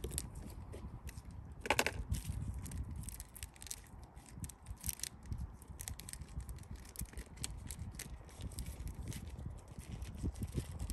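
Close crinkling and many scattered sharp clicks of small objects being handled, with a brighter crackle about two seconds in.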